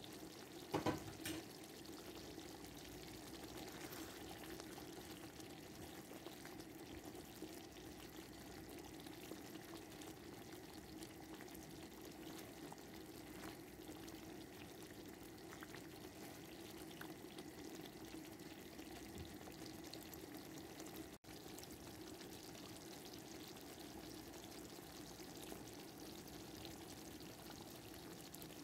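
Thick tomato-and-cream curry sauce simmering in a pan, a faint steady bubbling with scattered small pops, and a short knock about a second in.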